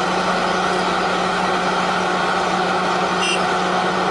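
Heavy vehicle engine idling steadily with a constant low hum, a recorded sound effect.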